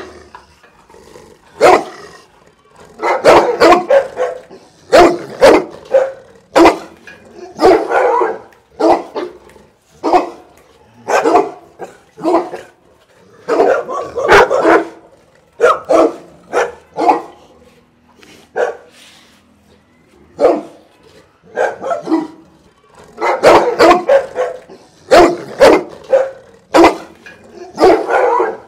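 Several bullmastiffs barking loudly and repeatedly, in single barks and quick runs of barks with short pauses between.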